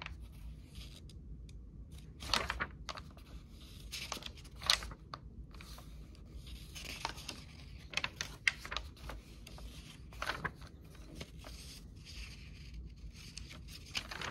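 Paper pages of a large book being turned by hand: irregular short papery swishes and rustles, several over the span.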